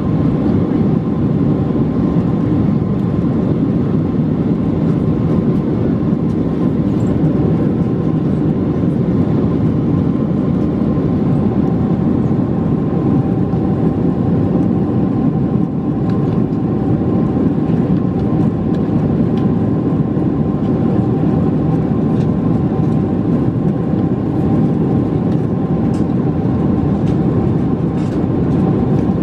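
Rolls-Royce engines of a Boeing 747-436 running steadily, heard inside the passenger cabin: a deep, even roar with a steady whine on top.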